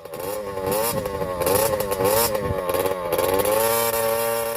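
Dirt-bike engine revving, its pitch rising and dipping as the throttle is worked, fading away near the end.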